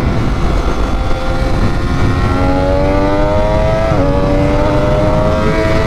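Triumph Daytona 675R's three-cylinder engine accelerating, its pitch climbing, then dropping sharply at a gear change about four seconds in and climbing again. Heavy wind noise runs underneath.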